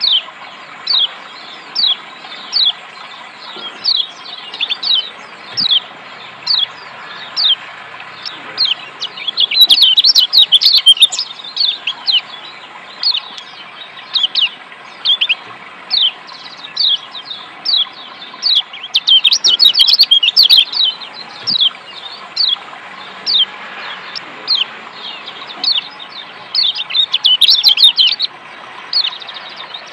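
Yellow white-eye (kecial kuning, a Zosterops) giving sharp, downward-sliding 'ciak' calls about one every second, breaking into fast runs of chattering calls about a third of the way in, near the middle, and near the end. A steady rush of water runs underneath.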